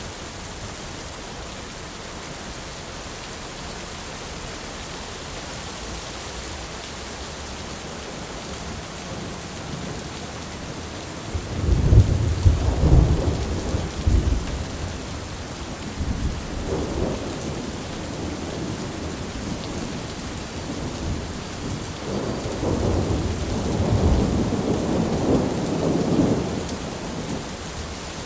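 Thunderstorm: steady rain throughout, with a loud thunderclap about halfway through that rolls on for a few seconds, a smaller rumble just after, and a longer rolling rumble of thunder building and fading near the end.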